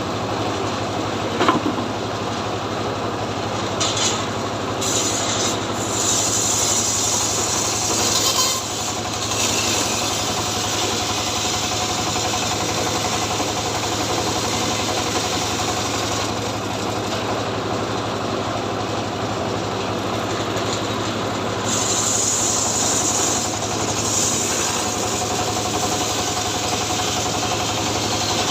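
Two-stroke chainsaw engine running at a steady speed, with a constant engine tone and bursts of higher hiss a few times.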